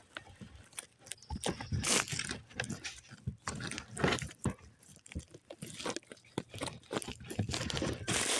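Small birds pecking and cracking seed: an irregular run of sharp clicks and crunches, with a faint short high chirp about a second and a half in.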